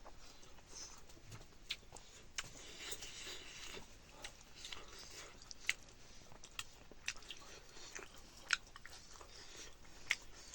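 A person chewing a mouthful of bird curry, with scattered short sharp clicks of mouth and food.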